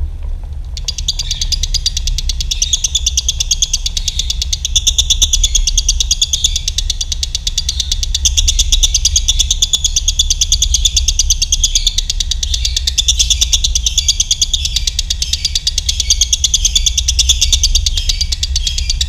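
Lovebirds chattering in a fast, unbroken trill (the long 'ngekek' song), starting about a second in, over a steady low hum.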